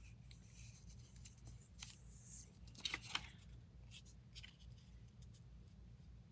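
Paper cutouts handled and slid about on a cutting mat: faint rustles and light taps, with a few louder crinkles about three seconds in.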